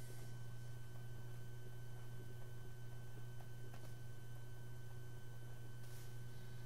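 Steady low electrical hum with a fainter thin high tone above it, and a couple of faint light ticks about four and six seconds in.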